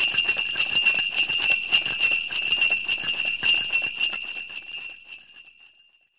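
Sleigh bells shaken in a continuous jingle, fading out over the last couple of seconds.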